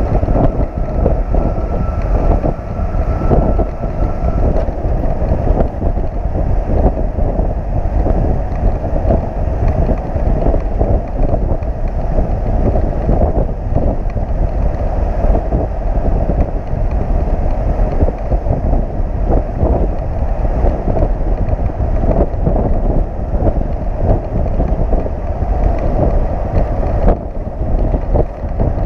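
Continuous heavy wind buffeting on the microphone of a motorcycle riding strapped to a flatbed tow truck at highway speed, over the low rumble of the truck and its tyres on the road.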